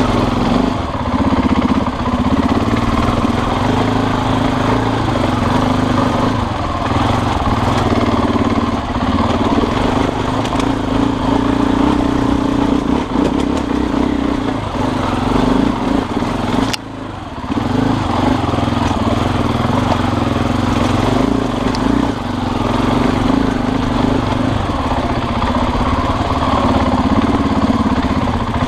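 Motorbike engine running steadily while being ridden, with a brief drop in engine sound about 17 seconds in.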